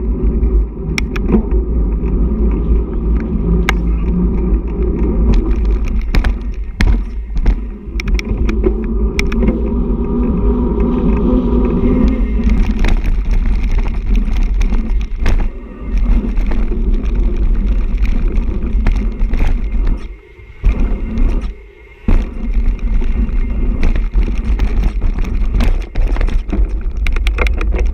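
Ride-along mountain-bike noise: a steady low rumble of wind on the microphone and knobby tyres rolling over tarmac and dirt, with frequent clicks and rattles from the bike. The noise dips briefly twice about two-thirds of the way through.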